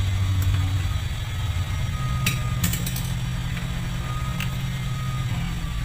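A steady low engine drone like a motor idling, its pitch stepping up slightly about two seconds in, with a few sharp clicks and taps from plastic dashboard parts being handled and fitted.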